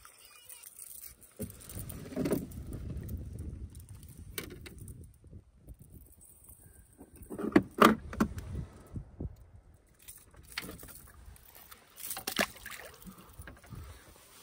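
Scattered knocks and clatter of fishing gear being handled on a plastic sit-on-top kayak, the loudest about eight seconds in and again about twelve seconds in.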